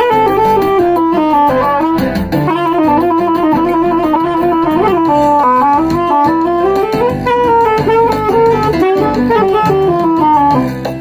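Soprano saxophone playing a flowing melody that steps and slides up and down, improvised over a backing track with guitar.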